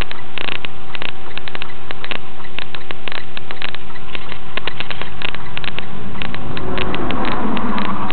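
Semi truck's engine and road noise droning steadily inside the cab, picked up by a dashcam microphone, with frequent sharp crackling clicks. A rushing swell rises and falls near the end as another vehicle goes by.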